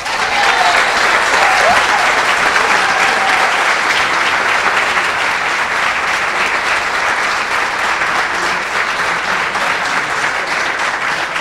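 Audience applauding, easing slightly near the end.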